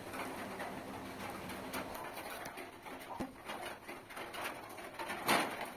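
A pigeon cooing faintly, with soft clicks and rustles of fingers working rice on a banana leaf.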